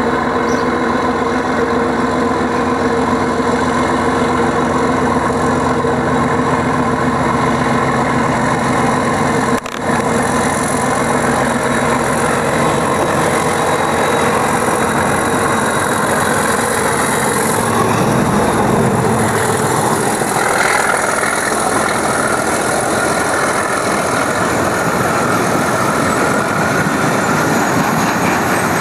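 Class 37 diesel locomotive's English Electric V12 engine running steadily as it approaches at the head of a heavy freight of loaded wagons, with a brief break about ten seconds in. Past the middle the engine sound gives way to the wagons rolling by.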